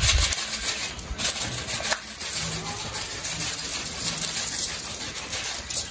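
Steady rubbing and rustling of shredded squash being mixed with seasoning in a bowl.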